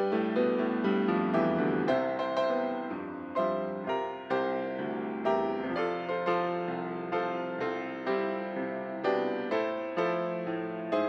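Piano playing a gentle instrumental piece, with notes and chords struck in a steady rhythm of about two a second, each fading after it is struck.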